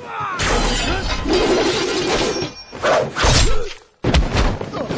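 Film sword-fight sound effects: a dense run of blade clashes, hits and crashing, breaking impacts, mixed with men's yells. The sound cuts out for an instant about a second before the end, then resumes.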